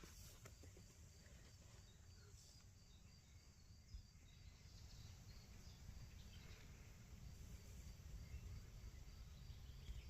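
Faint insect chirping, a high pulse repeating quickly and evenly, over a low rumble.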